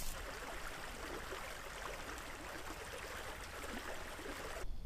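Shallow rocky creek running over stones, a steady soft rush of water that stops abruptly near the end.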